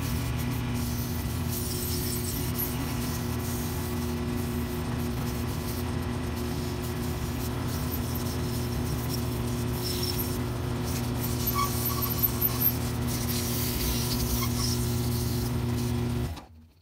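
Small wood lathe running steadily with a motor hum, while sandpaper is held against the spinning red ash wand blank. The sound cuts out abruptly near the end.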